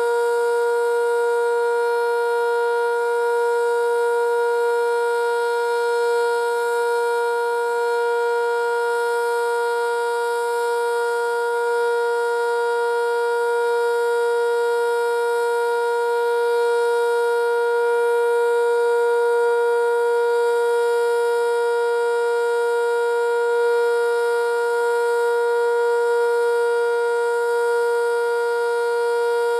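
Sentry 5V outdoor warning siren sounding the Alert signal: a loud, steady tone that holds one pitch without rising or falling.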